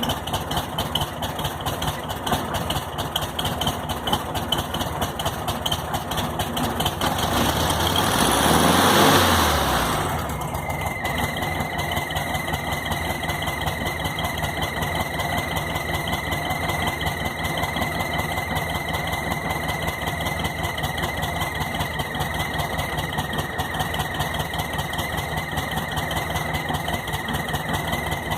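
VW Fusca's air-cooled flat-four engine idling, blipped once and settling back. Back at idle, a thin, steady, high-pitched whistle like a cricket sounds over the engine: air being sucked in past a loose carburetor base.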